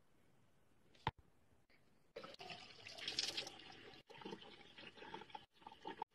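A single sharp click about a second in. Then water running and splashing, broken by several short gaps.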